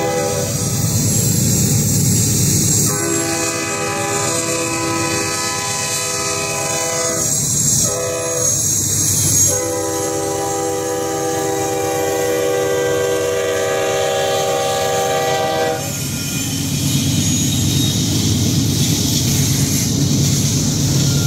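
Norfolk Southern diesel locomotive's air horn sounding a chord of several steady notes in the grade-crossing pattern: the end of a long blast, another long blast, a short one, then a final long blast held about six seconds. After it stops, the rumble and clickety-clack of the locomotive and autorack cars rolling past.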